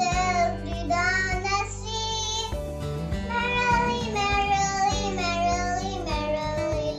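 A child singing a song over instrumental backing music, with long held notes.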